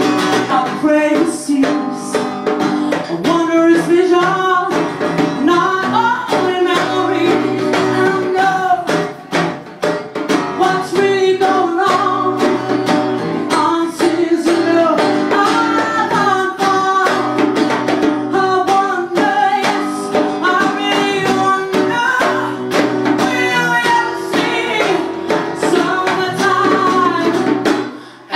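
Live acoustic band: a woman singing over strummed acoustic guitar and djembe hand drums. The music dips briefly near the end.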